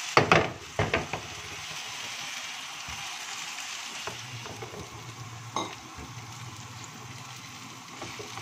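Chopped onions and ginger-garlic-green chilli paste sizzling in oil in a non-stick frying pan while being stirred with a silicone spatula, with a few sharp knocks of the spatula against the pan in the first second. The onions are being sautéed only until lightly golden.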